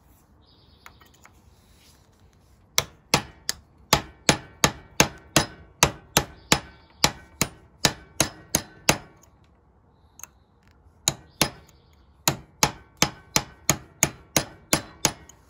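A hatchet striking a steel punch set in the chuck of a DeWalt 20V impact driver, to drive out a screwdriver bit broken off and jammed inside. Two runs of sharp, ringing metal-on-metal blows at about three a second, with a pause of about two seconds between them.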